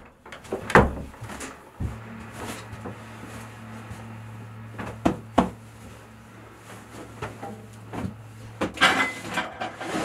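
Knocks and bumps on wood inside a small timber hut: a wooden door shutting, then a person shifting cushions and settling onto a wooden bench, with a busy run of knocks and rustles near the end. A steady low hum comes in about two seconds in.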